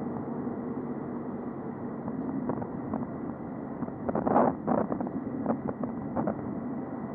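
Road traffic noise and wind on a cyclist's helmet-mounted camera microphone: a steady rumble, a short loud rush about four seconds in, and scattered clicks and rattles after it.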